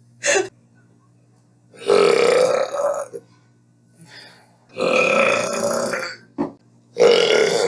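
A person burping repeatedly: three long, drawn-out burps of about a second each, with a short sharp click between the second and third.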